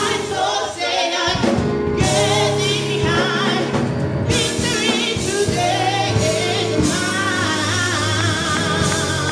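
Gospel music: a choir singing over sustained instrumental chords.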